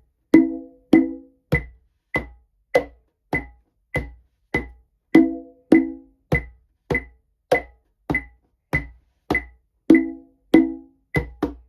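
A single conga drum plays the tumbao pattern in steady quarter notes at 100 BPM. Short muted heel-and-toe strokes fall on each beat, and a pair of ringing open tones comes once every bar, three times in all. A sharp metronome click marks each beat.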